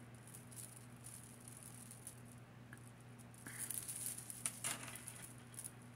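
Necklace chains and beads being handled and pulled apart, faint clicking and rattling that picks up about three and a half seconds in, over a steady low hum.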